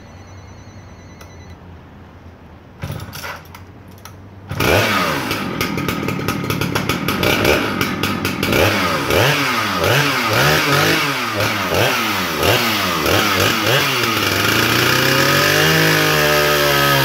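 Vintage Husqvarna 298 XP two-stroke chainsaw being started: a short burst about three seconds in, then the engine catches about four and a half seconds in and runs with its revs rising and falling unevenly, settling to a steadier note near the end.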